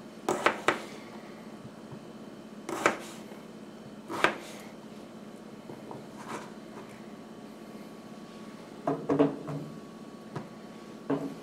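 Kitchen knife cutting golden potato into chunks and knocking against a plastic cutting board: a handful of separate sharp chops, two at the start, then one every second or two, with a short cluster near the end.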